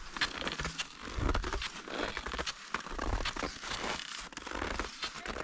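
Cross-country skis sliding and crunching over snow on a trail: an irregular run of crunching and scraping.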